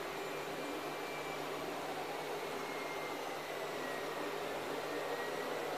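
Steady mechanical background noise: a constant airy hiss with a low hum and a faint steady whine, unchanging throughout.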